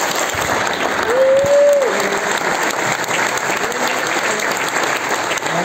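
Large audience applauding steadily, with one long held call from a single voice rising over the clapping about a second in.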